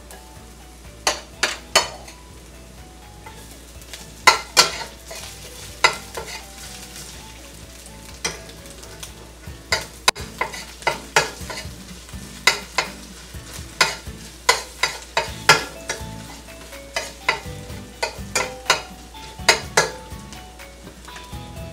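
Metal spoon stirring and clinking against a stainless steel frying pan in irregular sharp taps, over a light sizzle of chopped garlic and ginger frying in olive oil.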